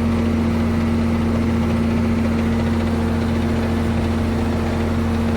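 Ford 9700 tractor's diesel engine running steadily with an even, unbroken drone while pulling and driving a working manure spreader.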